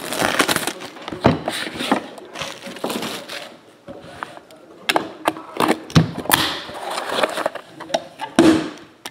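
Cardboard trading-card box being handled and opened: rubbing and scraping as the box slides on the mat and the inner case is worked out of its outer box, with several sharp knocks and taps, the loudest about five, six and eight seconds in.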